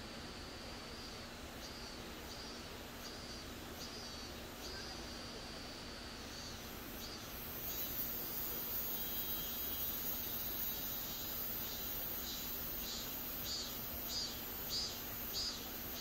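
Night insects singing: a steady high trill broken by short gaps about once a second. About eight seconds in, a much higher, louder shrill joins it and pulses near the end, over a faint low steady hum.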